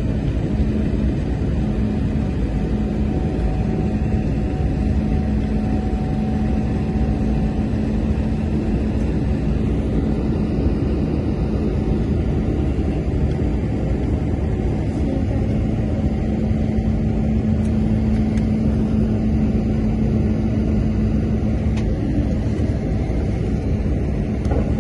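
Airliner cabin noise during the climb after takeoff: the engines and rushing air make a steady rumble, with a steady low hum running through it.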